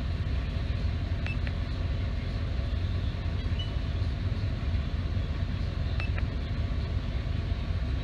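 Ford F-150 V8 idling steadily with a low rumble, heard from inside the cab, just after a new ignition coil was fitted to cylinder 7 to cure a misfire. The owner finds it idling a couple hundred RPM faster and judges that the new coil has helped. A few faint clicks, in pairs, come from the buttons of a handheld scan tool.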